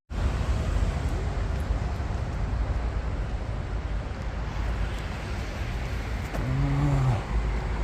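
Road traffic going by as a steady rumble with a hiss of tyre noise.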